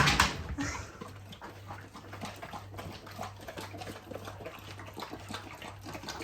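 A loud rush of noise that fades in the first half second, then a dog's small clicking and scratching sounds over a steady low hum.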